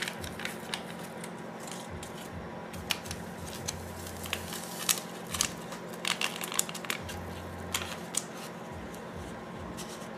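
Small paper-and-foil Sazón Goya seasoning packets being torn open and handled: a run of short, sharp crinkles and tearing rustles over a steady low hum.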